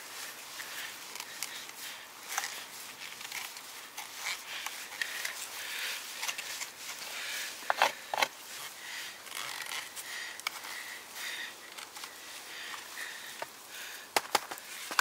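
The tip of an RJ Bushcraft custom knife scraping and gouging into a wooden stick, a run of small rasping scrapes and clicks. A few sharp, louder clicks come about halfway through and again near the end.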